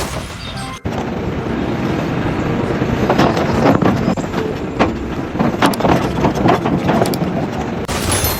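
Machinery running loudly, with irregular knocks and clatter; it cuts in abruptly about a second in.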